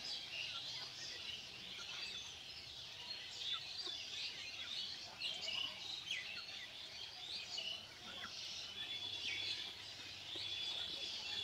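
Small birds chirping in the background: many short high calls overlapping throughout, with one longer steady note about three-quarters of the way through.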